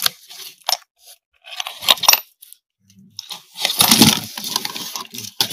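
Plastic driver bit set case and tools clattering in a cardboard box as they are handled and put away: a few sharp clicks, then a denser rattle of metal and plastic about three and a half seconds in.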